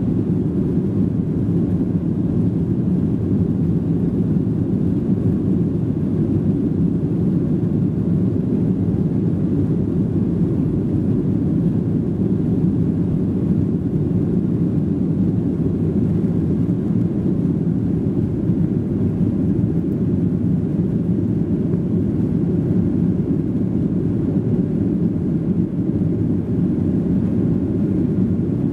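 Steady low cabin noise of a Boeing 737-800 in climb after takeoff: its CFM56-7B turbofan engines and the airflow past the fuselage, heard from a rear seat behind the wing, unchanging throughout.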